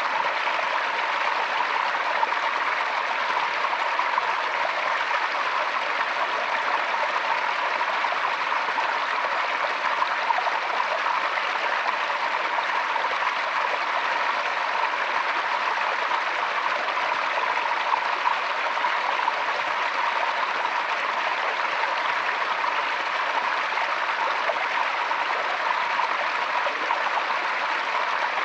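Forest stream running steadily over rocks, an even rushing and trickling of water.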